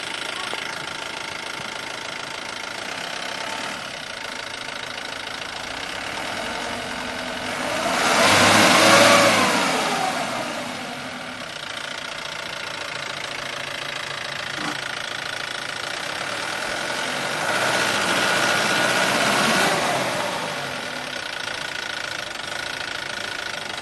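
A motor vehicle's engine passes by twice, a third of the way in and again near the end. Each time it grows louder and then fades, its pitch dropping as it goes past. A steady outdoor background noise runs underneath.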